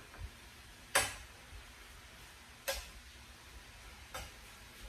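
A metal spoon clinks against a stainless steel skillet three times while stirring apples cooking in butter. The first clink, about a second in, is the loudest.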